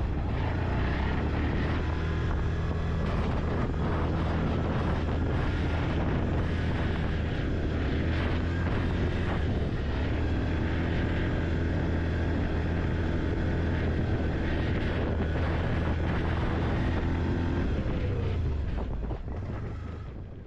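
Quad ATV engine running steadily under way, then fading away near the end.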